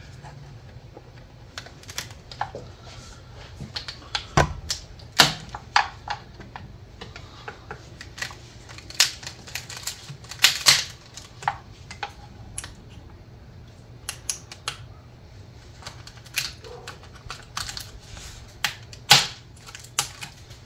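Irregular plastic clicks and snaps as engine wiring-harness clips and connectors are pried and pulled loose from the intake manifold with a pick, a few of the snaps sharper than the rest.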